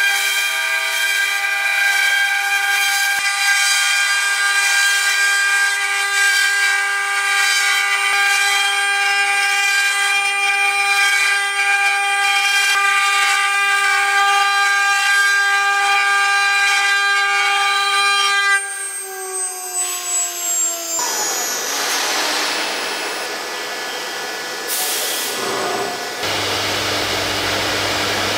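The high-speed spindles of a multi-head 4-axis CNC wood router whine steadily as they carve spiral wooden balusters. About two-thirds of the way through, the whine falls in pitch and gives way to a rougher, noisier machine sound.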